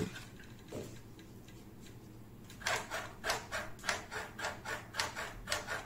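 Suspension of a Segway Ninebot ES4 electric scooter squeaking as it works, in a quick run of rubbing squeaks about two to three a second that starts about two and a half seconds in. The suspension is worn in after nearly 6000 km, and the squeak persists despite lubrication.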